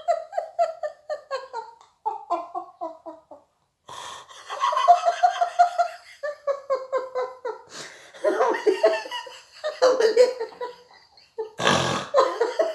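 A woman laughing hard in fits, runs of quick 'ha-ha' pulses falling in pitch, broken by breathy intakes of breath.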